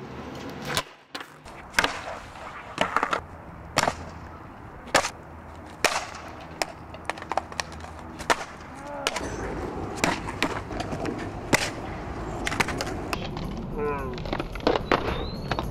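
Skateboards on asphalt: a series of sharp clacks as boards pop, land and slap the pavement, roughly one a second at first. Wheels rolling on the rough ground make a steady rumble from about halfway through.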